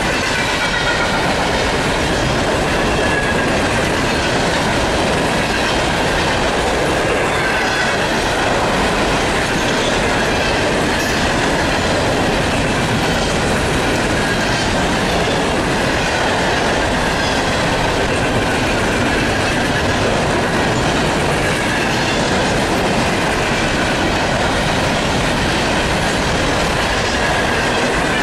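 Freight train's open-top hopper cars rolling past: a loud, steady rumble and clatter of steel wheels on the rails, with a thin, wavering squeal from the wheels on and off.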